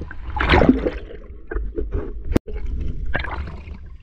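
Water sloshing and gurgling around a snorkelling spearfisher moving at the surface, with a louder rush of water about half a second in. A brief sharp click comes about halfway through.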